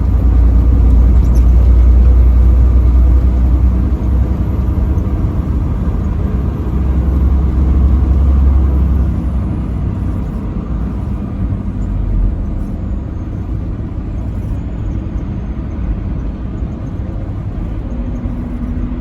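Truck running at highway speed: a steady low engine and road rumble, louder through the first half and easing off after about nine seconds.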